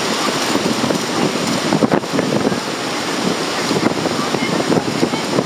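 Steady rush of breaking surf, with wind buffeting the microphone.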